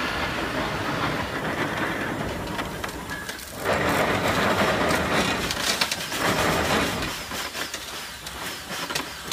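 Erie steam shovel working, its steam engine chuffing with the clatter of its gears and hoist cables as the loaded bucket is worked. The sound is a rapid, train-like clatter that gets louder about three and a half seconds in.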